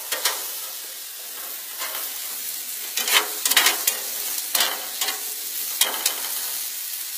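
Cut vegetables sizzling in a metal vegetable wok on a grill, a steady hiss. Metal tongs scrape and click against the wok several times as the vegetables are turned.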